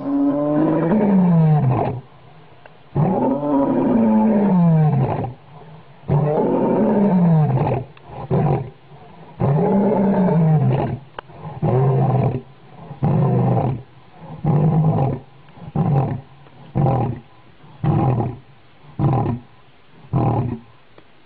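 Male lion roaring: four long, deep roars that slide down in pitch, then a series of shorter grunting calls, about one a second, that become briefer as the bout winds down.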